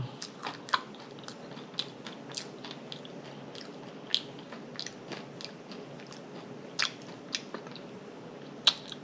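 Close-miked mouth chewing food with wet lip smacks and sharp mouth clicks scattered irregularly.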